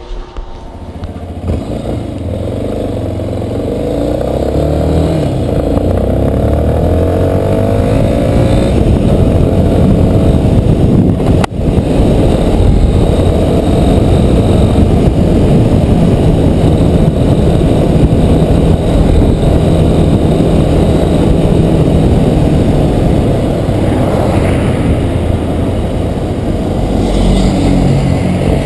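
Yamaha Ténéré 250's single-cylinder engine running through a newly fitted Coyote 2-way aftermarket exhaust. The revs climb over the first several seconds, then it runs steadily and loudly, with a brief dip about eleven seconds in.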